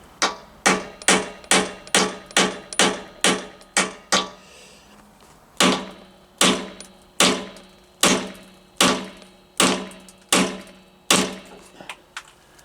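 Hammer blows on a homemade drift, driving a worn metalastic rubber handlebar bush out of a Triumph T140 Bonneville's yoke. A quick run of about nine strikes, a pause about four seconds in, then slower, heavier strikes with a short metallic ring, ending in a few light taps.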